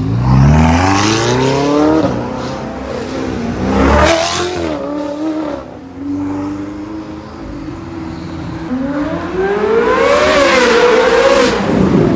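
Ferrari engines accelerating hard, the revs climbing sharply in the first two seconds and again around four seconds in, then a long pull that rises and falls near the end.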